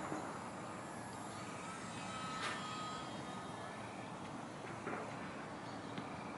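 Faint, steady whine of a small electric radio-controlled airplane's motor and propeller in flight, over a steady outdoor background hiss, with a few light clicks.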